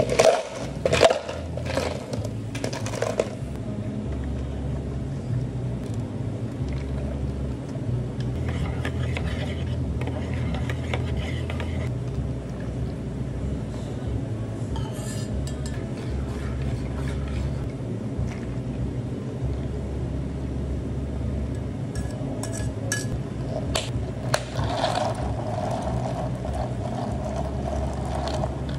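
Ice cubes clattering into large plastic cups, then liquid poured in from a small metal pitcher, and ice clinking in the cups as the iced lattes are stirred near the end. A steady low hum runs underneath.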